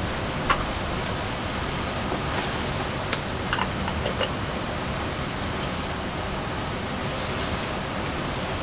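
Steady rush of rain falling in the forest, with a few light metallic clinks about three to four seconds in as a small kettle is handled on a steel grill grate over a campfire.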